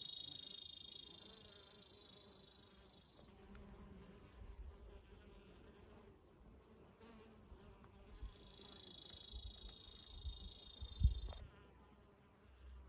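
Insects trilling in a high-pitched, continuous shrill chorus that drops away about three seconds in, comes back strongly near the end and then cuts off abruptly. A single low thump sounds just before the cut.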